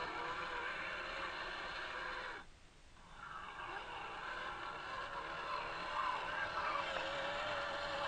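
Electric motor and gearbox of a scale RC UAZ 39094 crawler truck whining, the pitch wavering as the throttle changes. It cuts out briefly about two and a half seconds in, then picks up again.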